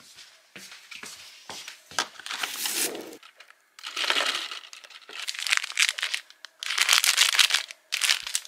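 Plastic shop bag crinkling and rustling in a string of bursts as it is handled, the longest and loudest near the end.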